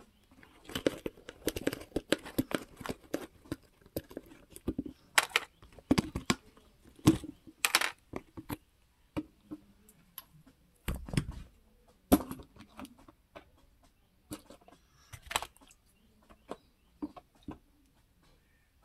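Irregular metallic clinks and knocks of steel parts and tools being handled while a tractor's front wheel hub and bearing are worked on and cleaned, some strikes ringing briefly.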